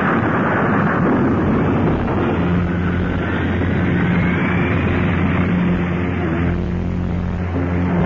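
Animated sound effect of a space battleship's engine firing at full power for launch: a loud rushing roar with a rising whine through the middle, thinning out near the end. Sustained music chords come in about two and a half seconds in.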